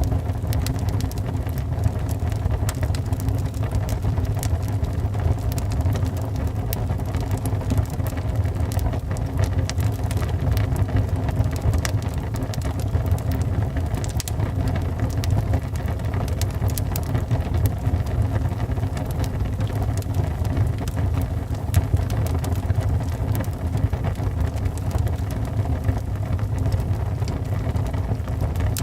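Wood fire burning in a fireplace: a steady low rumble of flames with frequent sharp crackles and pops from the burning wood.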